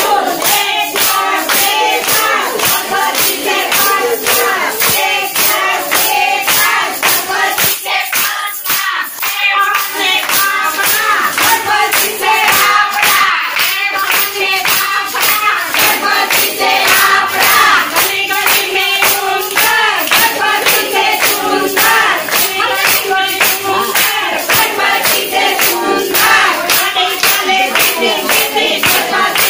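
Group of voices singing a devotional song to a steady beat of hand claps, about two claps a second.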